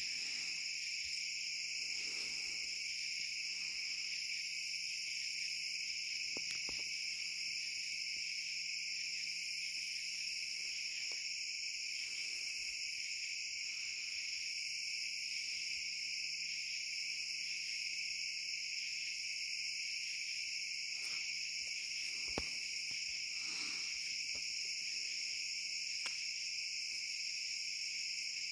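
Steady night chorus of crickets and other insects, several layered high-pitched trills running without a break, with a couple of faint clicks.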